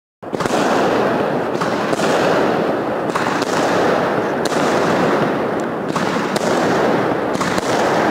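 Consumer fireworks going off in a loud, continuous barrage: a dense crackle with sharper bangs every half second to a second.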